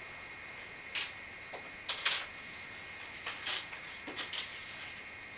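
Scattered light clicks and scrapes, the loudest about two seconds in, over a faint steady high-pitched whine.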